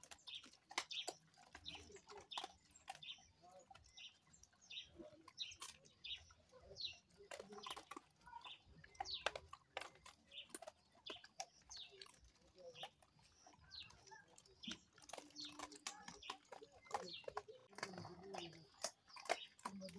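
A pack of German Shepherds eating off the ground together: irregular clicks and crunches of chewing, with faint chirps.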